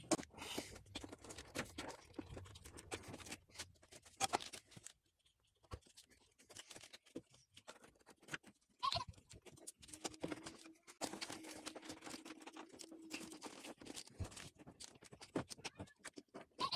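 Faint scattered clicks and light knocks of hand-tool work among engine-bay parts as a 10 mm ground-wire bracket is taken off. A faint steady tone lasts about three seconds partway through.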